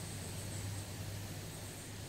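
Quiet outdoor ambience: a steady low hum under an even hiss, with a faint, constant high-pitched tone.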